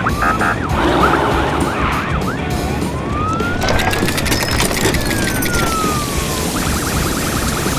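Emergency vehicle siren wailing, a slow rise and fall in pitch, then switching to a fast warble near the end.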